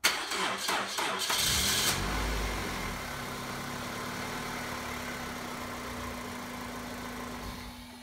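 Pontiac Vibe's four-cylinder engine cranked over very slowly by the starter on a weak battery, catching about two seconds in, then flaring up and settling into a steady idle. The slow crank is the sign of a battery too weak to start the car properly.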